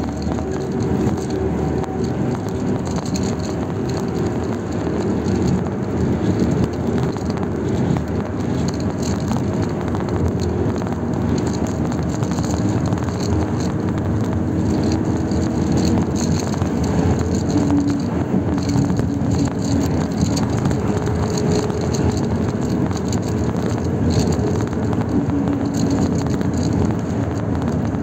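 Steady road noise of a moving vehicle: engine and tyres rumbling on the road, with a faint engine hum that slowly drifts in pitch.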